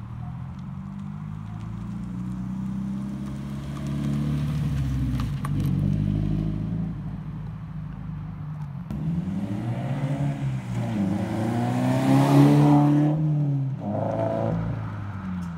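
Scion FR-S flat-four boxer engine with a GReddy Re-Mark muffler-delete exhaust, driving past and accelerating away. Its pitch rises, drops back twice and climbs again, loudest a few seconds before the end.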